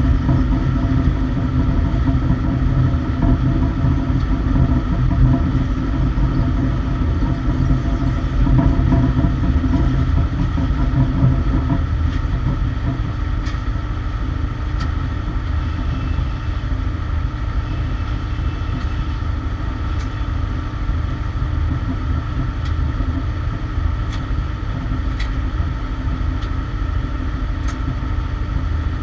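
Engine of a lower-deck cargo loader running steadily, a low rumble with a steady whine over it. About twelve seconds in, some of the mid-pitched tones drop out and the sound eases a little, with a few faint clicks afterwards.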